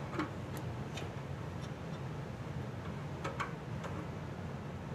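Faint, scattered metallic clicks and ticks as the mounting bracket of a furnace hot surface igniter is loosened and swung on the burner assembly, with a close pair of clicks a little past three seconds in, over a steady low hum.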